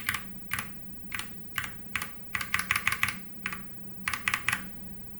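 Keys being pressed on a Whatgeek x 3inuS Kebohub EE01 mechanical keyboard: short clusters of two to four clicks about every half second, as function-key combinations are tapped over and over to change the lighting.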